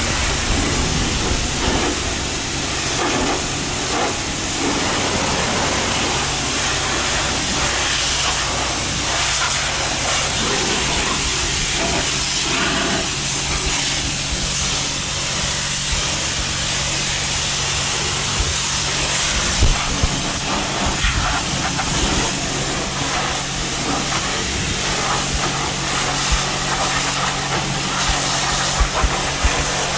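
Self-serve car wash high-pressure wand spraying water at about 3,000 psi, a loud steady hiss with a low hum underneath.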